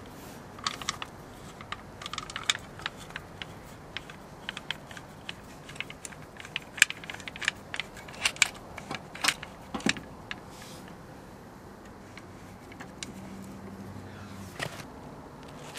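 Irregular metallic clicks and clanks of a steel scissor jack being handled and set in place under a car, most of them in the first ten seconds, with one more clank near the end.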